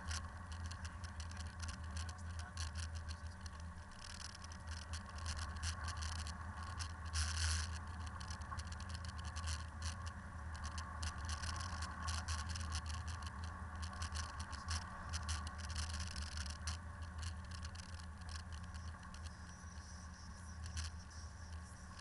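Land Rover driving at steady speed, heard from inside the cab: the engine runs with a low, even drone. Over it comes a dense, irregular crackle of small clicks from the tyres on the snowy, gravelly track.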